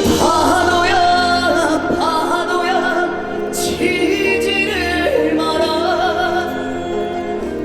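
Trot song performed live: long held sung notes with a wavering vibrato over a full backing track.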